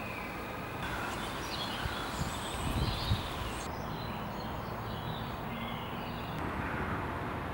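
Outdoor ambience: a steady background hum of environmental noise with birds chirping now and then.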